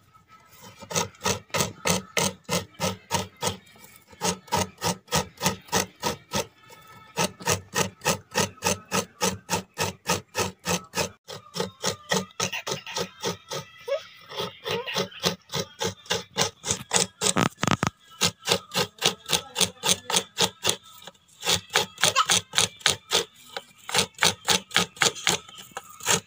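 Coconut half being grated by hand: rhythmic rasping scrapes, about three strokes a second, with short pauses between runs.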